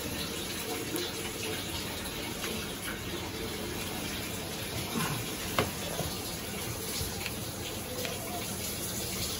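Water running steadily from a tap, with one sharp click about halfway through.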